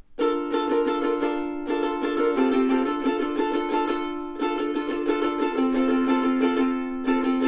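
aNueNue US3K all-koa soprano ukulele being strummed: chords in a quick, even strumming rhythm, changing chord a few times.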